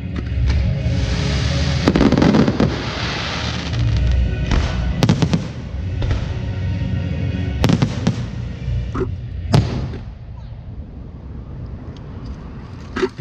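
Fireworks going off over music: a hissing crackle about a second in, then half a dozen sharp bangs spaced irregularly, over a steady low music bed.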